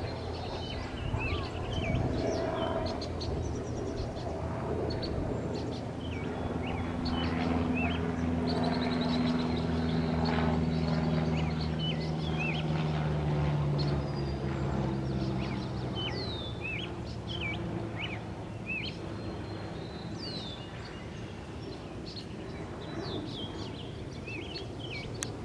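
Small birds chirping in short, high calls scattered throughout, over a low engine drone that swells a few seconds in and fades away after the middle.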